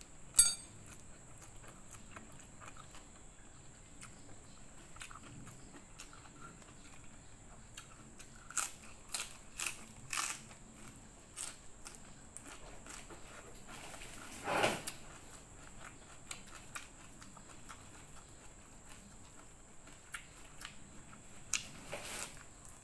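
Close-up eating sounds: chewing fried noodles with bean sprouts and crisp crunching bites of raw leafy greens, the crunches coming in short clusters. A sharp click just after the start is the loudest sound.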